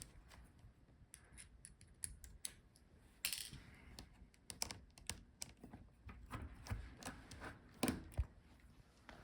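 Faint, scattered clicks and short scrapes of a screwdriver and small screws being worked out of a laptop's display assembly.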